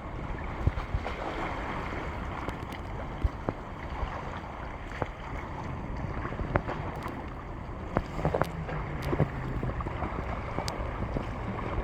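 Sea waves washing on the shore with wind on the microphone, with scattered sharp clicks throughout. A low steady hum joins about eight seconds in.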